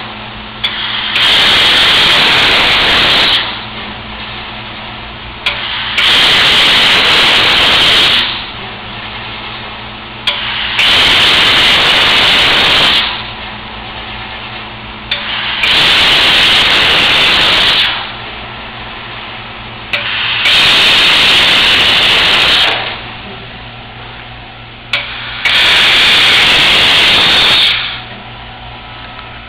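A 5-axis CO2 laser cutting head hissing in bursts of about two seconds, roughly every five seconds: the assist gas jet blowing while each cut is made in a formed sheet-metal part. Between bursts a low steady machine hum, with a sharp click just before some of the bursts.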